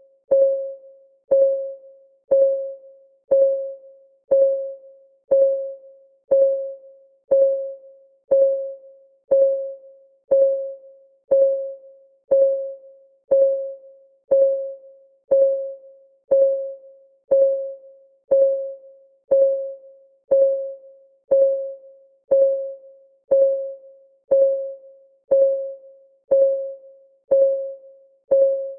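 Countdown timer's clock ticking sound: one short tick each second, each a single pitched ping that dies away quickly.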